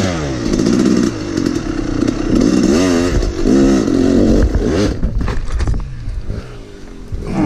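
Yamaha YZ250 two-stroke dirt bike engine revving hard in rising and falling bursts as it is ridden at a log. About five seconds in come a few knocks and a scrape as the bike goes down, and the engine note drops away.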